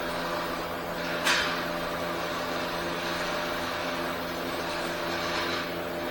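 Steady machine hum with a hiss over it, and one sharp knock about a second in.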